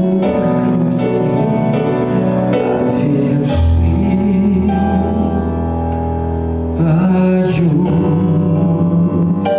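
A song sung with instrumental accompaniment, the voice holding long notes. A deep bass note enters about three and a half seconds in.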